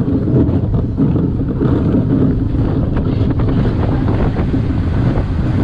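Steady wind buffeting the microphone over a continuous low rumble.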